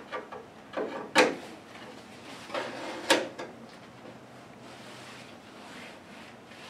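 Irregular knocks and clatters from fitting a car headliner and its bows up against the roof; the two loudest knocks come about a second in and about three seconds in, and the last few seconds are quieter.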